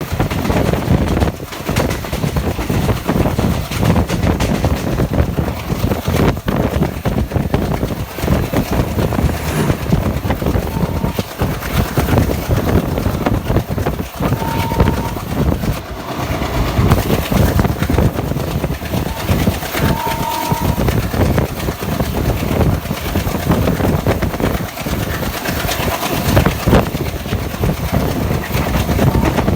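WDM3A ALCO diesel locomotive hauling an express train past, its engine chugging over steady wheel clatter on the rails. A few brief horn toots sound around the middle.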